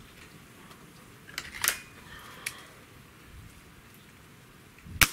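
Hatsan 135 .30-calibre gas-piston break-barrel air rifle loaded and fired: a few clicks as the pellet is seated and the barrel closed about one and a half seconds in, then a single sharp shot near the end.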